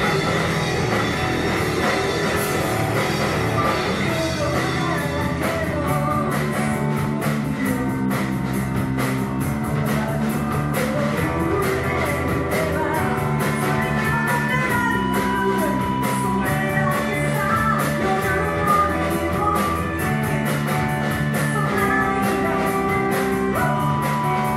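Rock band playing: electric guitar, bass, drum kit and piano, with a woman singing the lead. The drums play a busy beat of quick cymbal hits from about five seconds in.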